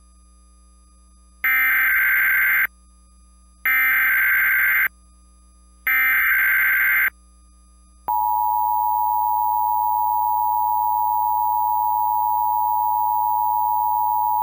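Emergency Alert System tornado warning opening: three short screeching bursts of the SAME data header, each about a second long with a second's gap between them. From about eight seconds in comes the steady two-tone EAS attention signal.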